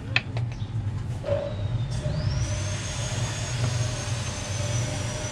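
A steady low machine hum, with a few light clicks at the start; about two seconds in a high whine rises and then holds.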